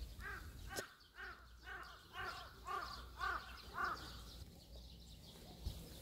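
A crow cawing, a run of about eight caws at roughly two a second that stops about four seconds in.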